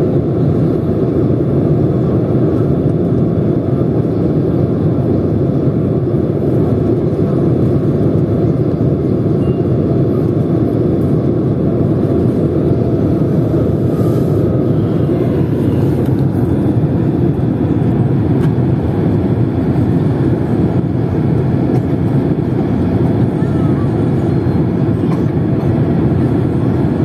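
Steady cabin noise of a Boeing 767-200 descending on approach with its flaps extended: an even drone of engines and airflow rushing past the fuselage, heard from inside the cabin.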